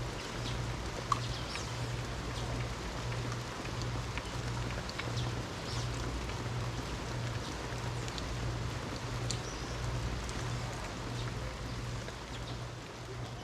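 Steady rain falling, with scattered short high bird chirps, a sharp tick about a second in, and a low hum that pulses about one and a half times a second.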